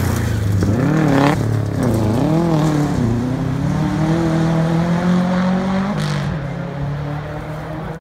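Rally car engine on a gravel stage, revving up and down several times as the driver works the throttle through the corner. It then pulls away with a steadily rising engine note that drops about six seconds in, fading as the car goes off.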